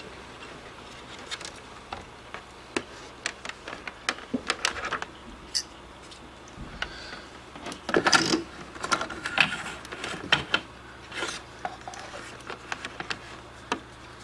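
Handling noise of a USB fan's cable and plastic body being moved around a PS3 console on a desk: scattered light clicks, taps and rubbing, busiest about eight seconds in, over a faint steady low hum.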